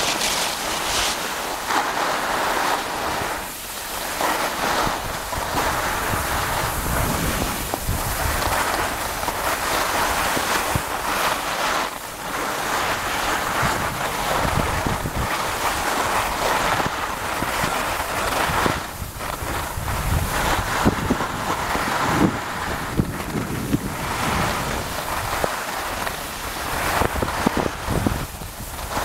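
Skis sliding and scraping over groomed snow, a steady rushing hiss, mixed with wind buffeting the microphone of a camera carried by a moving skier. Short knocks come through in the second half.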